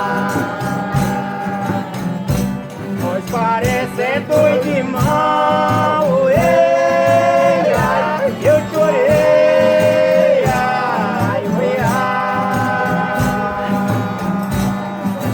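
Folia de Reis folk singing: voices in harmony holding long notes at the ends of phrases, over a steady beat of tambourine-like percussion.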